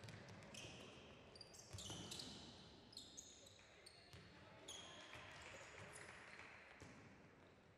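Faint basketball game sounds on a hardwood court: sneakers squeaking on the floor again and again, a ball bouncing, and players' voices.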